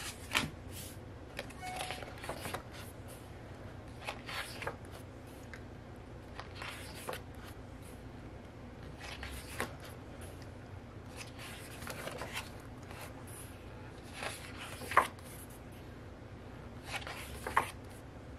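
Printed photo cards and paper inserts being handled and flipped through, in scattered short rustles, slides and light taps. The sharpest tap comes about 15 seconds in.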